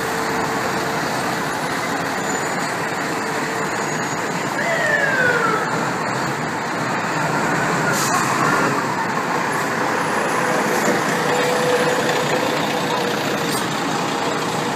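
Seagrave fire engine (pumper) driving slowly up and past close by, its diesel engine running over steady city traffic noise. A short falling whine is heard about five seconds in.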